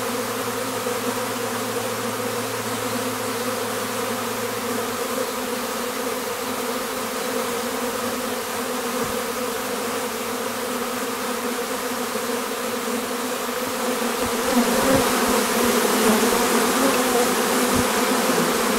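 Honeybees buzzing steadily at close range as they crowd a syrup feeder: a continuous hum with an overtone, growing louder about fifteen seconds in.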